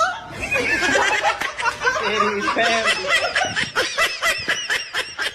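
Laughter in quick, breathy bursts that speed up into a rapid run of about four or five a second in the second half.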